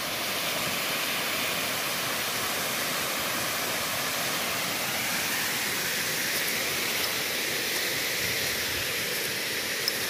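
Steady rushing of a waterfall cascading over rocks, an even hiss with no breaks.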